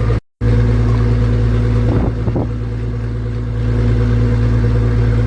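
Motorized fishing boat's engine running with a steady, loud drone. The sound cuts out completely for a moment just after the start.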